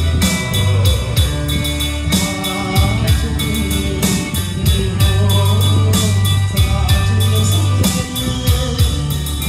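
Music with a steady drum beat and deep held bass notes, played loud through a BOOM column speaker system with a subwoofer base.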